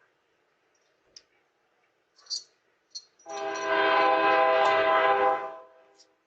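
A horn blowing one long, steady chord for about two and a half seconds, starting about three seconds in, after a few faint clicks.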